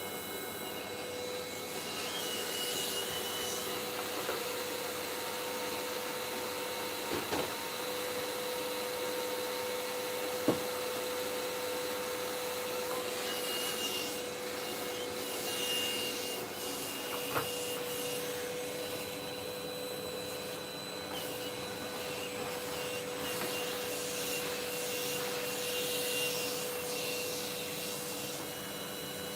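Vacuum cleaner running steadily with a constant motor tone and airflow noise, with a few brief knocks along the way.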